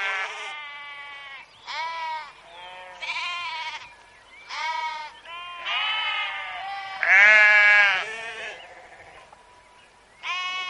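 Sheep bleating: a run of about ten wavering bleats, each under a second, some overlapping. The loudest comes about seven seconds in, followed by a short lull before another bleat near the end.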